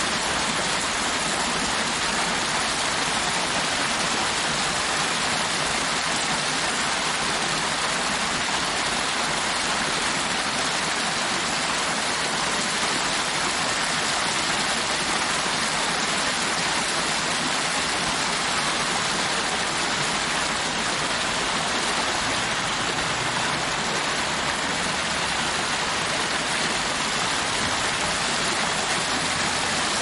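Artificial waterfall: water pouring in a continuous sheet down a long wall and splashing into the shallow channel at its foot, a steady, even rush of falling water.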